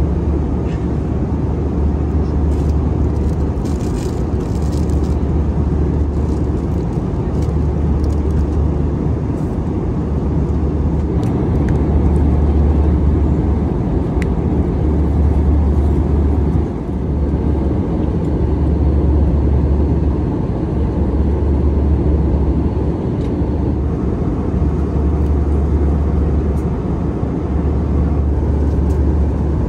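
Airbus A320 cabin noise in flight: a steady, loud low drone of engines and airflow that swells and eases slightly.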